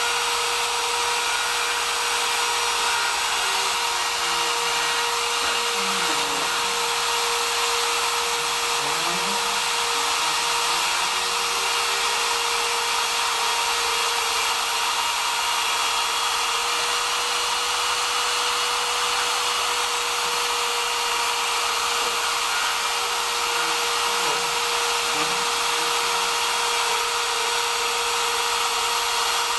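Homemade CNC router running its spindle with a steady high whine over a hiss, while a lower motor tone sweeps down and back up several times as the machine moves along the letters it is cutting.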